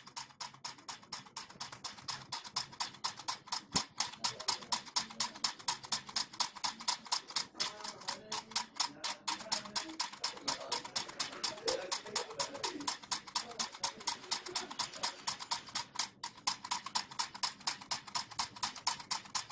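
Homemade solenoid engine running, clicking in a steady rhythm of about five clicks a second as the coil pulls the plunger rod and turns the crank and flywheel.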